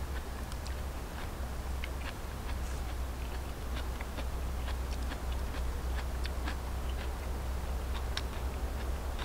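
A wooden utensil clicking and scraping against a wooden plate while eating, with light irregular ticks and some chewing, over a steady low rumble.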